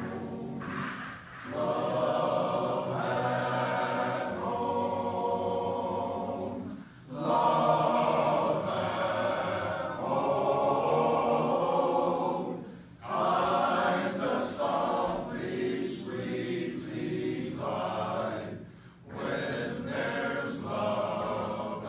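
Men's chorus singing a cappella, in sustained phrases of several seconds with short breaks between them about every six seconds.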